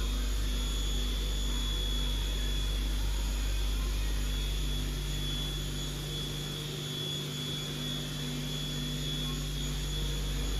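Star SB-20R Swiss-type CNC lathe running: a steady machine hum with a thin high whine over it. The low part of the hum eases off about six seconds in and comes back near the end.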